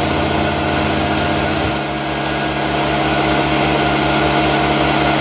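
Milling machine running, its T-slot cutter cutting into black acetal plastic held in a vise: a steady motor-and-spindle hum with a regular low throb. The throb changes a little under two seconds in.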